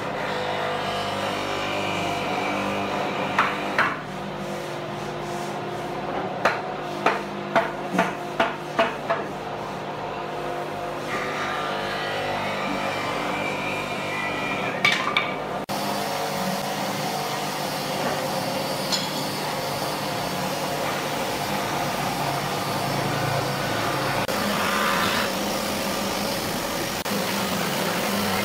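Hammer blows knocking the wooden rails of a door frame into their joints: two strikes, then a quick run of about seven, then two more about halfway through, over a steady background noise. No strikes in the second half.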